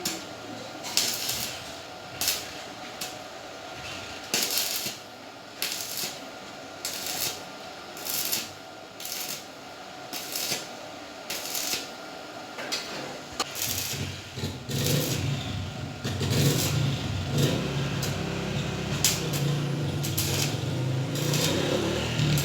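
Rhythmic strokes of a hand tool, about one a second, as the motorcycle's exhaust pipe is worked on for fitting the new silencer insert. A lower hum joins in about two-thirds through.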